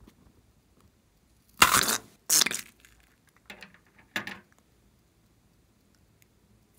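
Four short scraping, snipping handling noises, the loudest about two seconds in, as a slime-filled rubber balloon is cut open with scissors and squeezed over a glass bowl.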